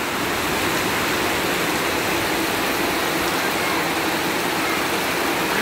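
Floodwater rushing, a steady even roar with no breaks.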